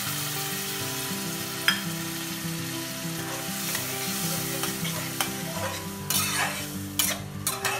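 Dhal and tomato mixture sizzling in a kadai while a metal spatula stirs it, scraping against the pan. The scraping strokes come thicker and sharper near the end.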